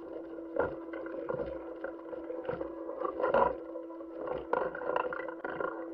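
Background audio of astronaut spacewalk footage: a steady low hum with a muffled hiss, broken by irregular clicks and knocks.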